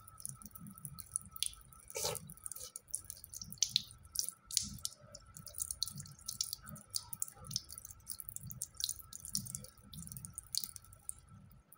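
A cat lapping water at a bathroom sink while water drips from the tap into the basin: a steady run of small, irregular wet ticks and splashes.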